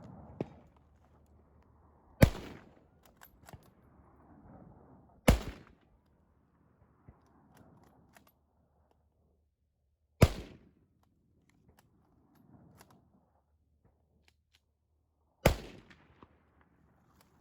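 Four single gunshots a few seconds apart, each cracking sharply and dying away in a short echo, with faint clicks and knocks between them.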